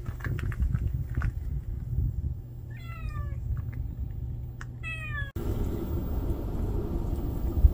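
A cat meowing twice, about two seconds apart; each meow is short and falls in pitch. A low rumble runs underneath throughout.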